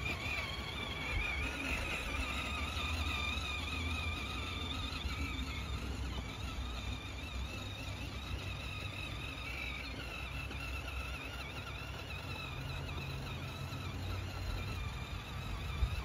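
Electric drive motors and gearboxes of a 12 V kids' ride-on truck whining as it drives over grass, the whine wavering in pitch and growing a little quieter in the middle as the truck moves off, then coming back. A low rumble runs underneath.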